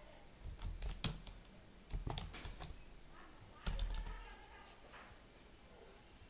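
Computer keyboard typing: faint, scattered keystrokes in a few short bursts.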